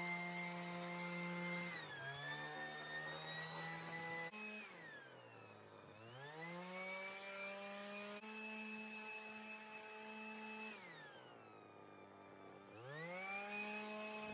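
Leaf blower running at full speed, throttled down twice to a low idle and revved back up, once around the middle and again near the end.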